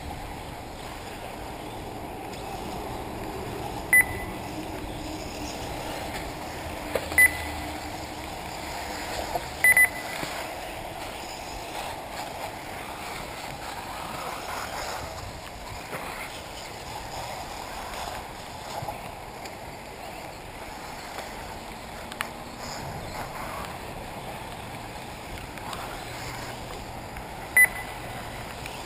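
Electric 1/8-scale RC buggies running the track, a steady hum of motors and tyres. Short high electronic beeps sound a few times in the first ten seconds, two close together, and once near the end, typical of the lap-timing system as a car crosses the line.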